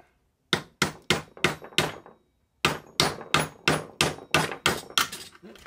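A hammer tapping the end of a screwdriver used as a punch, driving a spring clip out of the pin on a radiator fan's hub to free the fan blade from its motor. Two runs of quick, sharp strikes: five, a short pause, then eight more at about three a second.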